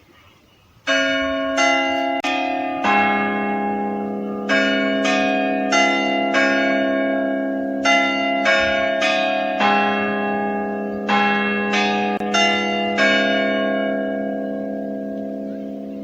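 Church clock bells chiming the full quarter chime that comes before the hour strike: four phrases of four strokes on bells of different pitch. They start about a second in, and the last stroke rings on and slowly dies away.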